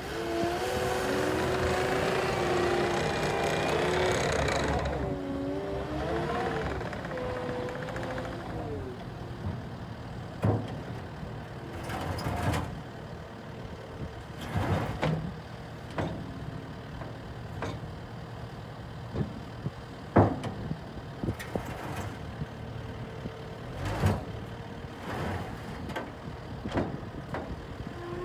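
Caterpillar 289D compact track loader's diesel engine running as the machine drives, its pitch shifting up and down for the first few seconds before settling to a steadier, quieter note. A scattering of sharp metallic knocks and clanks runs over it, the loudest about two-thirds of the way through.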